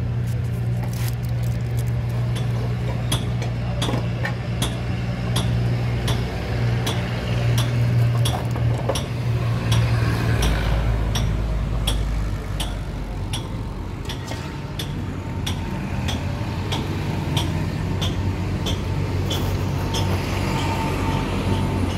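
A steady low engine hum, with sharp metallic clinks repeating about twice a second, as of metal being struck.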